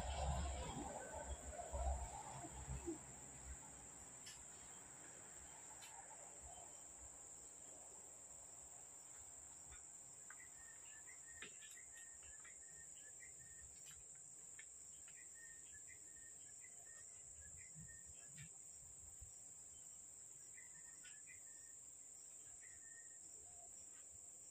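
Steady high-pitched insect drone, with a bird chirping now and then from about ten seconds in. A few rustles and knocks in the first three seconds.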